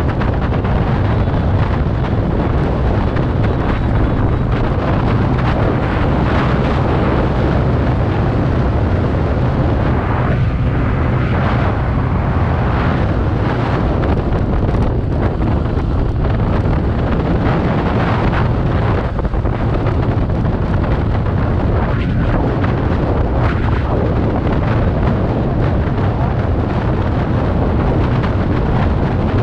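Steady wind rush on the microphone with a TVS Ntorq 125 Race XP's single-cylinder scooter engine and tyre noise underneath, cruising at a constant speed of about 80 km/h.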